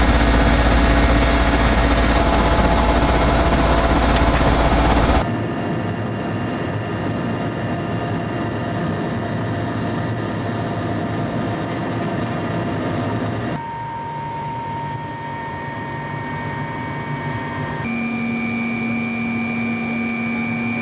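Helicopter cabin noise in flight: steady engine and rotor noise with constant whining tones. It drops abruptly about five seconds in, and its tones shift twice more later on.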